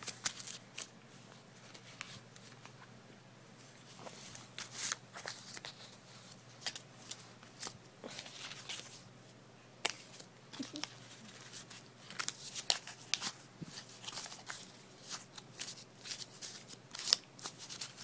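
A dog chewing on a bus pass: irregular crackling, crunching bites. They thin out for a couple of seconds early on, then come thick and fast in the last third.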